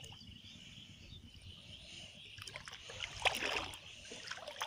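Water dripping and splashing as a wet cast net is hauled up out of the water by hand, with a louder run of splashes about three seconds in.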